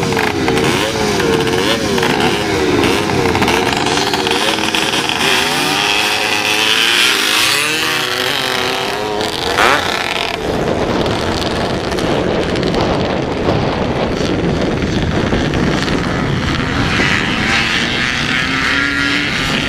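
A pack of vintage 250 and 400 class flat-track racing motorcycles revving and accelerating away from the start, engine pitch repeatedly rising and falling. After about ten seconds the engines blend into one dense sound as the bikes run around the dirt oval.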